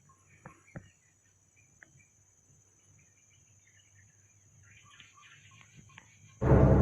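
Faint forest sounds: scattered bird chirps and a few sharp clicks over a steady high-pitched hiss. Near the end, loud ominous music starts abruptly.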